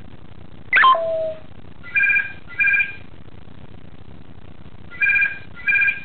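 Telephone double ring (brr-brr), heard twice about three seconds apart. About a second in, the African grey parrot gives a falling whistle that settles on a short held note.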